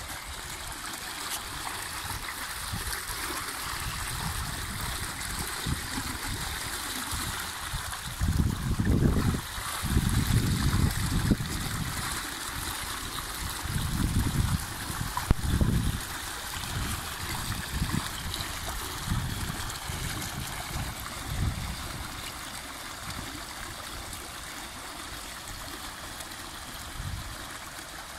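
Dolphin robotic pool cleaner working at the waterline, its pump outflow churning the pool surface into a steady rush and splash of water. Irregular louder low rumbles come and go, strongest in the middle.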